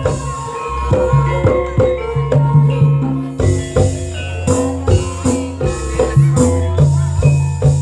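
Live campursari band playing an instrumental passage: many short pitched notes over a steady low bass line, with frequent drum and percussion strikes in a regular rhythm.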